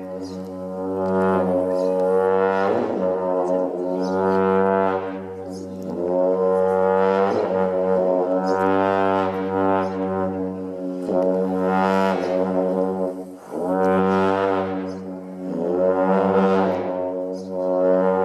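Tibetan long horn (dungchen) sounding a deep, sustained drone, its brassy overtones swelling and fading every two to three seconds.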